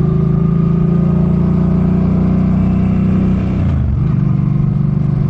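Suzuki Boulevard M50's 805 cc V-twin engine running steadily under way. Its revs dip briefly about three and a half seconds in, then come back up.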